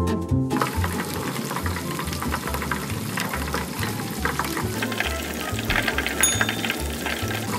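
Battered shrimp deep-frying in a pot of hot oil: a dense, steady crackle and sizzle of many small pops, starting about half a second in and briefly louder around five to six seconds in as more battered shrimp go into the oil.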